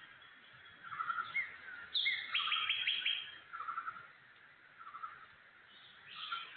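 Several wild birds calling in woodland: short repeated chirps recurring about once a second, a high downward-slurred whistle about two seconds in, followed by a fast run of notes, over a faint steady background hiss.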